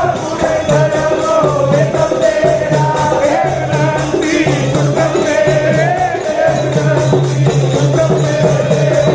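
Gurbani kirtan: a wavering melodic line over an on-and-off low drone, with a fast, even jingling percussion beat.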